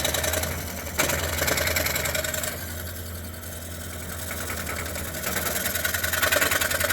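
DeWalt scroll saw running with a steady hum, its reciprocating blade cutting through a wooden board, with a sharp click about a second in.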